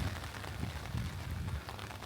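Steady rain falling, from a rain-and-thunderstorm recording laid over the track, with a low rumble underneath.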